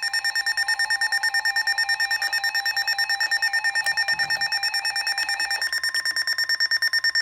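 Electronic emergency-alert alarm tone, beeping rapidly at about ten pulses a second, signalling an incoming alert.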